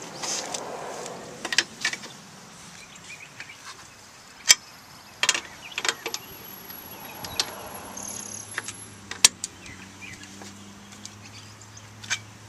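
Tire iron knocking and clinking against the lug nuts as they are tightened on a spare wheel, a few sharp separate metallic knocks spaced a second or more apart. A faint low steady hum comes in during the second half.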